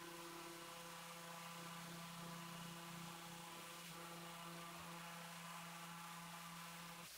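Random orbital sander with vacuum dust extraction running steadily over the wood and epoxy, a faint, even hum with hiss. It cuts off abruptly at the very end.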